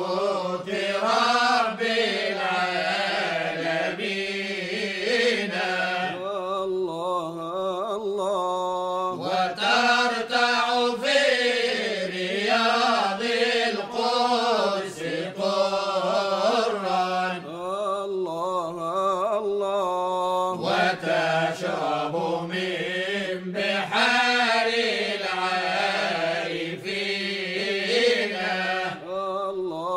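Sufi chant from Cairo: a choir of voices singing an ornamented, wavering melody over a steady held low drone.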